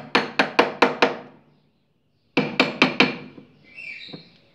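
Nylon (tecnil) hammer tapping on the end of a washing machine transmission shaft to free a stuck part. A quick run of about six light blows, a pause of about a second, then four more.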